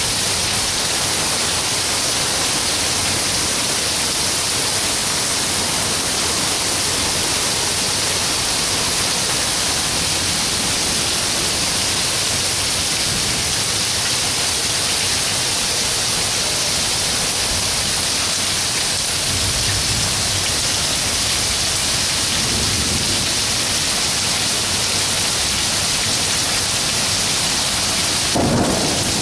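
Heavy thunderstorm downpour: a steady, dense hiss of rain falling on pavement and roofs. A brief low rumble comes about two-thirds of the way in, and a short louder burst near the end.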